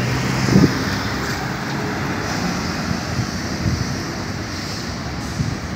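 Steady street traffic rumble mixed with wind buffeting the microphone, with a brief swell about half a second in.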